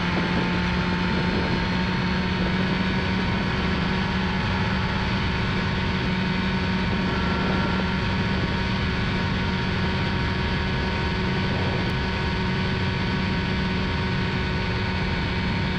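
Ultralight airplane's engine and propeller running steadily in flight, an even drone that holds one pitch throughout.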